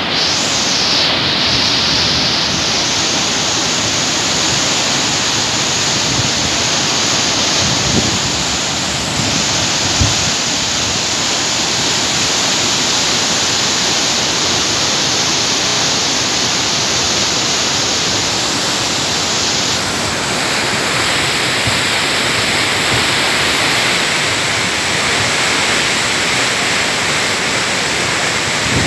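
Flooded river in full spate, its fast, churning water making a loud, steady rushing noise.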